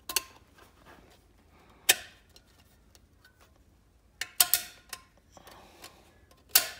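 About six sharp metallic clicks and snaps, spread out, with several close together about four and a half seconds in. This is the low/reverse snap ring in a 4L60E transmission case being pressed down by hand and seated into its groove.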